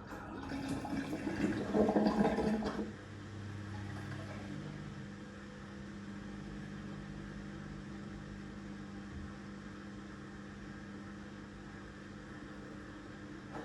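Samsung WW6800 front-loading washing machine mid-cycle: water rushes through it for about the first three seconds, then stops. After that comes a steady low motor hum.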